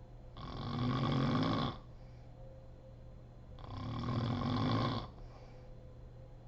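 A woman snoring in her sleep: two long snores about three seconds apart, each swelling in loudness and then cutting off.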